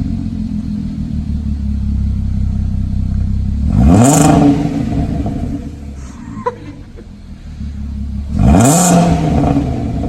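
VW Golf R32 Mk5's 3.2-litre VR6 idling through a non-resonated Milltek cat-back exhaust just after its first start on the new system. The throttle is blipped twice, about four seconds in and again near the end, the revs rising and falling back to idle each time.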